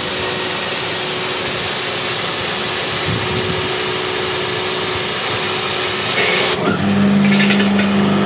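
Electric pressure washer spraying with the lance trigger held: a steady hiss of the high-pressure water jet over the hum of the motor and pump, showing the pump now makes pressure. About six and a half seconds in the spray stops and the motor and pump run on with a steady hum.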